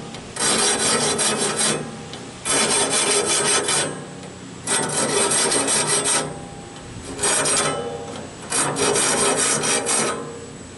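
Air-powered grinder grinding the steel teeth of a sawmill band blade in five short bursts of harsh grinding, one much shorter than the rest, with a thin high whine between them.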